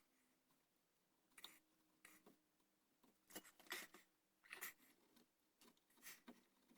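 Faint, irregular strokes of a hand carving tool paring wood on a flintlock shotgun's gunstock, short scratchy cuts about every half second to a second with short gaps between.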